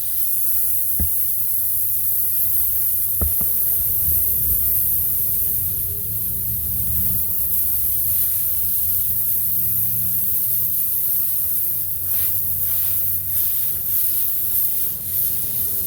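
Air hissing steadily out of a truck tire's puncture after the stuck rock has been pulled from the tread, over a low rumble, with a couple of faint clicks in the first few seconds.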